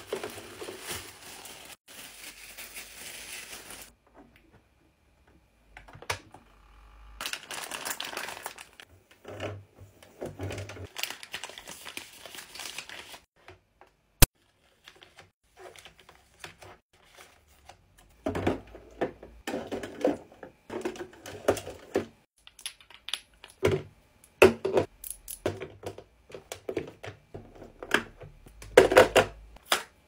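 Plastic packaging crinkling and rustling as it is pulled out of a mini fridge, with one sharp click near the middle. In the last third, a busy run of taps and knocks as skincare bottles, tubes and packets are set onto the fridge's shelves and door pocket.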